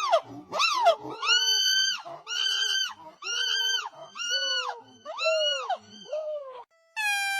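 A monkey calling in a rapid series of high, pitched calls. At first each call rises and falls in pitch, about two a second. Then come longer calls held at an even pitch, a little under one a second. Near the end a steady held tone begins.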